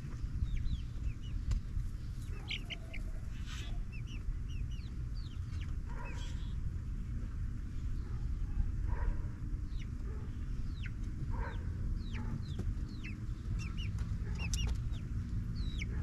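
Eight-week-old pullets, Barred Plymouth Rocks among them, peeping: many short, high, falling chirps scattered through, with a few lower calls. A steady low rumble runs beneath.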